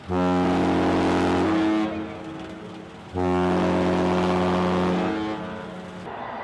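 A boat horn sounding two long, steady, low-pitched blasts of about two seconds each, about a second apart.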